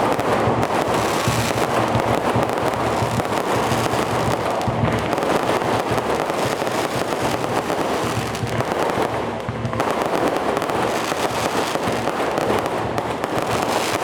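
Fireworks going off in a dense, unbroken crackle of rapid bangs, with a slight lull about eight seconds in.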